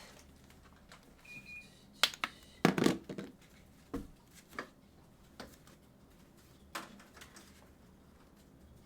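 Scattered knocks and clatter of objects being handled, loudest about two to three seconds in, with one short high beep about a second and a half in.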